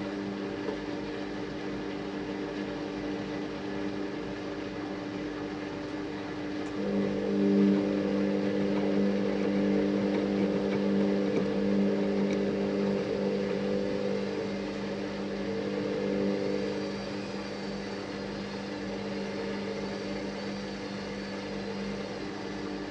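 Washing machine running with a steady motor hum. It grows louder and stronger from about a third of the way in, then eases back to the earlier level a few seconds before the end.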